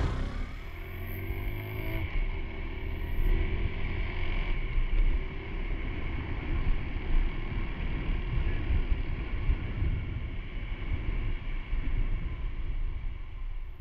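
Honda Super Cub C125's air-cooled single-cylinder four-stroke engine and exhaust running steadily, its note shifting in pitch in the first few seconds.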